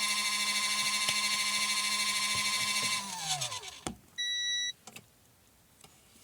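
Small 12 V portable washing machine's motor running steadily, then switching off about three seconds in and winding down with a falling pitch. A single short electronic beep follows, the machine signalling that its cycle has finished.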